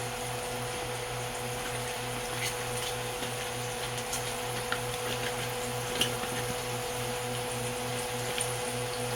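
Steady machine-like hum with an even, rhythmic low pulsing, and a few faint light clicks over it.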